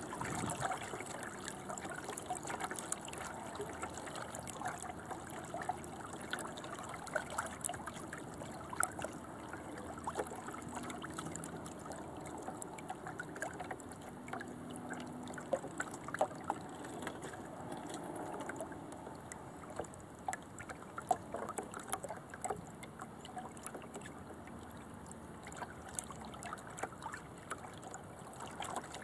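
Water trickling and splashing along the hull of a small sailing dinghy underway, with many small irregular splashes and ticks.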